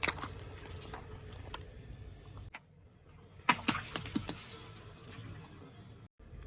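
Something brittle cracking and crunching as it is crushed under a car tyre: one sharp crack at the start, then a quick run of cracks about three and a half seconds in, over a low engine hum.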